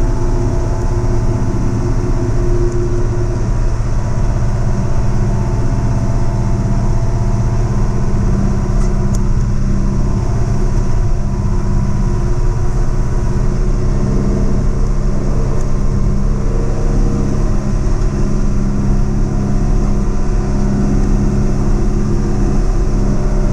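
Diesel engine of a heavy earthmoving machine running steadily under load, with an even low drone and no change in speed.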